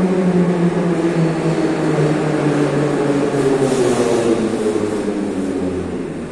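Moscow Metro train pulling in, its motor whine slowly falling in pitch as it slows, over the rolling noise of the wheels on the rails.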